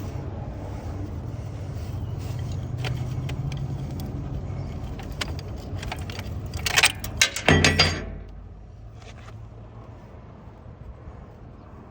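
Steady low hum with scattered metallic clicks. About six and a half seconds in comes a second and a half of loud crackling and clinking, after which the hum goes on more quietly.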